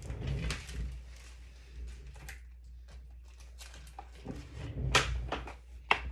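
Handling and movement sounds from someone shifting in a swivel chair and reaching for things: low rumbles with knocks near the start and again about four seconds in, with a few sharp clicks scattered between.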